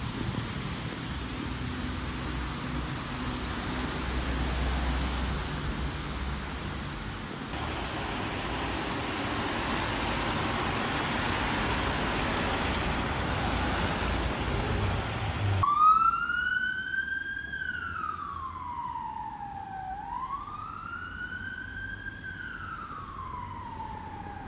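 Steady street and traffic noise, then about two-thirds of the way in an emergency vehicle's siren starts up, wailing in a slow rise and fall about every four seconds.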